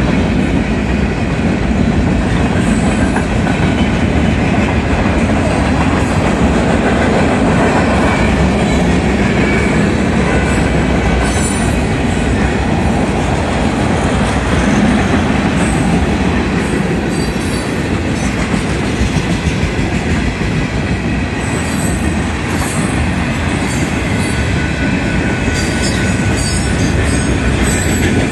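Freight cars of a Union Pacific manifest train rolling past at close range: a steady, loud rumble and clatter of steel wheels on the rails.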